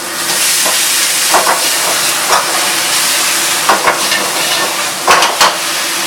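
Chicken stir-frying in a hot wok, a loud steady sizzle that jumps up right at the start as the yellow bean sauce goes in. The metal spatula knocks and scrapes against the wok about six times.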